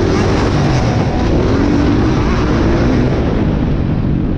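Motocross dirt bike engine revving hard at race speed, heard close up, its pitch rising and falling with the throttle, with the other bikes in the pack running around it.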